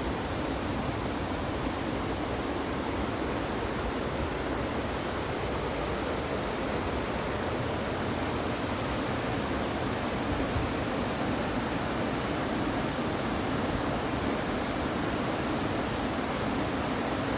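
Mountain stream or small waterfall rushing over rocks: a steady, even wash of water noise, fullest in the low and middle range.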